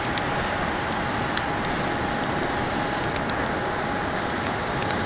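Steady rush of wind and breaking surf on an open beach, with a few faint scattered clicks and a faint steady hum in the background.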